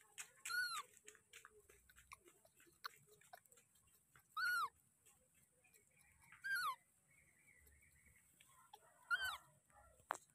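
Baby macaque giving four short, high-pitched calls a couple of seconds apart, each rising then falling in pitch. Faint rustles between the calls and a sharp click near the end.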